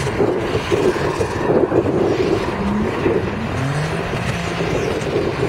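Turbocharged BMW E30 drifting: the engine revs up and down several times as the car slides sideways on spinning rear tyres.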